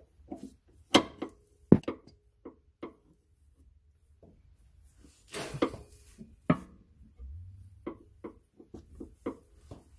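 Irregular metallic clicks and knocks as a breaker bar is seated in the serpentine belt tensioner and levered to take the tension off the belt.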